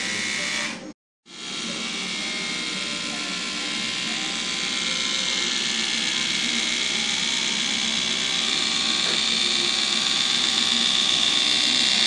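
Split Ender Pro split-end trimmer's small electric motor running steadily with a whine as it is drawn along strands of hair, trimming the split ends. It cuts out for a moment about a second in, then comes back and grows gradually louder, the high whine strongest near the end.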